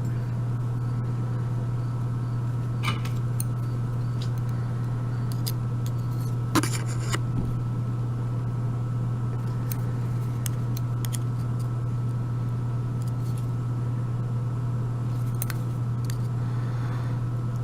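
A steady low hum, with a few light metallic clicks from handling a gutted Abus 72/40 euro lock cylinder and its small pin parts; the loudest click comes about six and a half seconds in.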